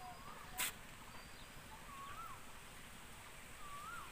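A bird's short whistled call that rises and then drops sharply, repeated about every two seconds over a faint outdoor hush, with a single sharp click about half a second in.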